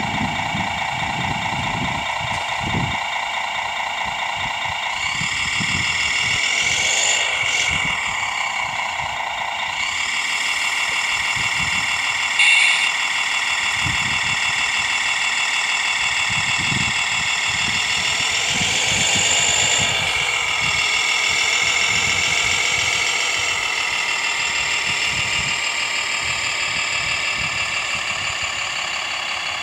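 Motors of a radio-controlled Scania 6x6 tipper truck whining in several steady high tones. The pitch slides up and down twice as the motors speed up and slow down, with one short sharp clack about twelve seconds in.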